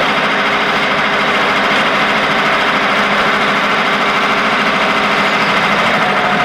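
Steady, loud running hum of an air-conditioner outdoor unit, with constant low tones under a dense fan hiss.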